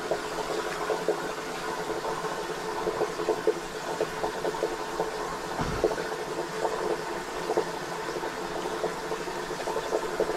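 Fillet knife cutting through channel catfish belly meat and along the rib cage on a cutting board: many small clicks and ticks over a steady background hiss, with one dull bump a little before six seconds in.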